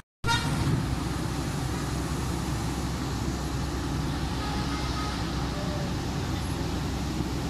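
Steady street traffic noise, a low rumble of vehicles, which cuts in abruptly just after the start.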